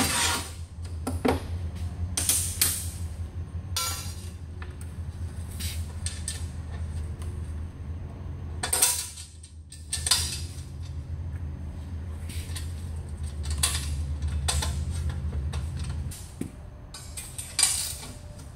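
Steel plates, a bracket and their bolts and nuts clinking and clanking as a smoker baffle plate assembly is handled and bolted together: a string of separate sharp metal clicks and knocks.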